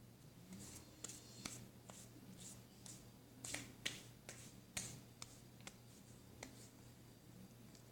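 Slime being squeezed and worked by hand: a faint, irregular string of small sharp pops and clicks, thickest about halfway through.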